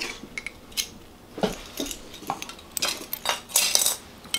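Acrylic keychains with metal key rings clinking and rattling as they are handled, in short, scattered clicks.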